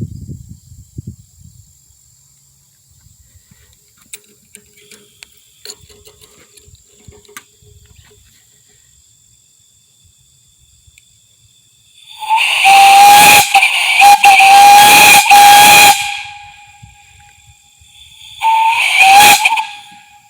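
Whistle on a 1/2-inch Crane whistle valve blown twice: a long blast of about four seconds, briefly broken twice, then a short blast of about a second. It sounds one steady high note with overtones, starting a little sharp before settling.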